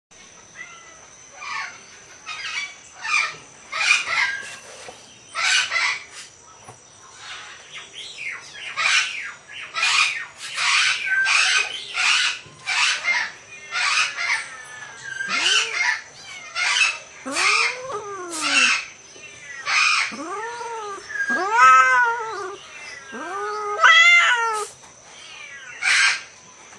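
Cats calling while mating, an Asian leopard cat paired with a Bengal cat: short breathy calls repeated over and over, then from about halfway a string of drawn-out yowls that rise and fall in pitch.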